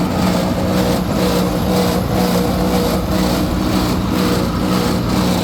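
Combine running with its newly replaced feeder house engaged, a steady drone with a higher tone above it that wavers and comes and goes. It sounds bad, the sign of something wrong in the new feeder house.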